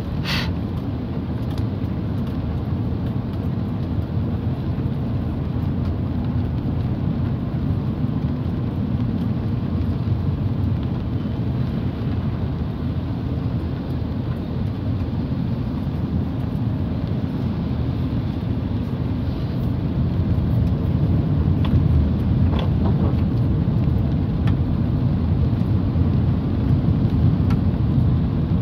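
Steady low rumble of a car driving on a wet road, engine and tyre noise heard from inside the cabin, a little louder in the last third. A brief sharp sound just after the start.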